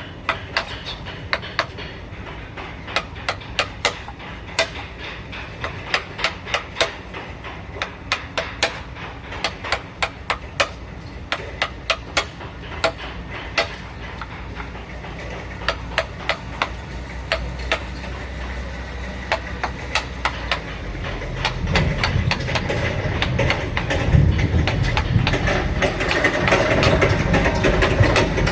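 Hammer tapping on wood in irregular sharp knocks, a few a second, as in hand carving. About three quarters of the way in, a low machine rumble rises beneath the taps and grows louder.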